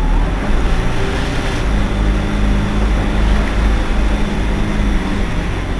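Irisbus Citelis 18 articulated city bus idling at a stop, its engine giving a steady low hum with a faint constant tone.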